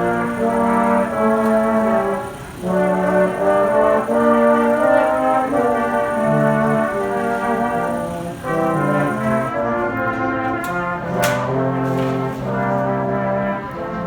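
Background music: a melody played on brass instruments, with a few short clicks about ten to eleven seconds in.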